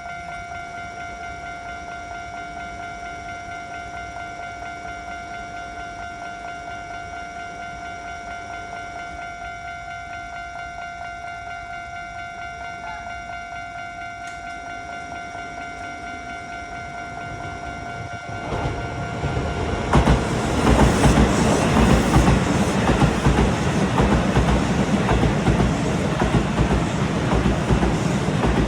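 Railway level-crossing warning bell ringing steadily in a repeated 'kan-kan-kan'. From about 18 seconds in, a Keisei Electric Railway train comes through the crossing, growing loud with a rapid rattle of wheels on rail. Its noise takes over from about 20 seconds in, where the bell tone is no longer heard.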